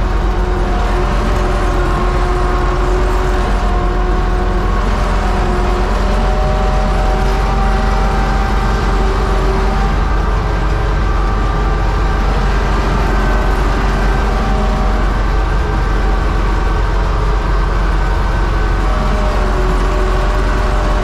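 Universal U650 tractor's four-cylinder diesel engine running steadily under load while pulling a three-furrow mounted plough.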